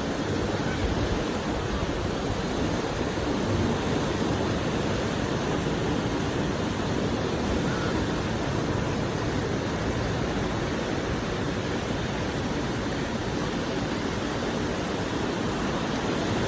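Ocean surf: waves breaking and washing on a beach, a steady rushing noise with some low rumble, mixed with wind on the microphone.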